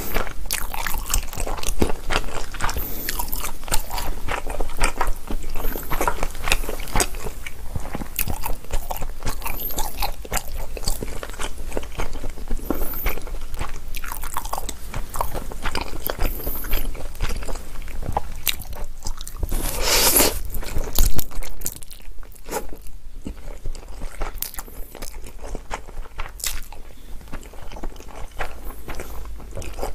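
Close-miked chewing and mouth smacking of a mouthful of Chapagetti black-bean noodles, a quick run of small wet clicks. About twenty seconds in there is one louder, longer mouth noise lasting a second or so.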